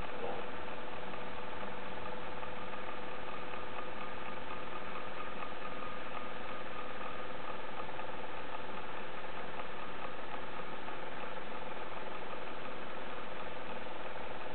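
Motorized camera slider's drive motor running steadily: a constant whine of several even tones over a hiss.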